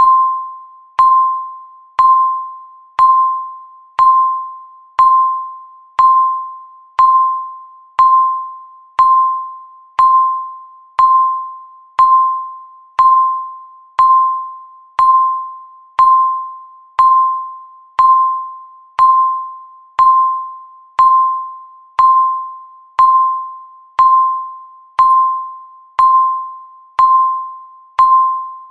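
Countdown timer beeping once a second, each beep a single clear tone that starts sharply and fades away before the next.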